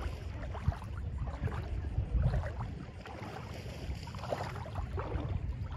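Small wavelets of shallow bay water lapping and trickling at the shoreline, with many small splashy crackles over a low, uneven rumble.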